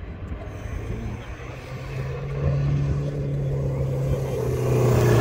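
Toyota Fortuner SUV engine pulling hard under load as it climbs a sand dune. It grows louder about two seconds in and keeps building as it nears.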